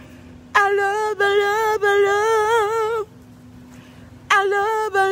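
A voice singing long, wordless held notes with vibrato: one phrase from about half a second in to three seconds, then a second phrase starting past four seconds in.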